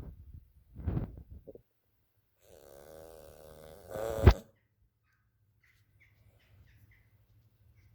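A sleeping dog snoring: a short snuffling breath about a second in, then a longer pitched snore from about two and a half seconds that ends in a sharp snort just after four seconds.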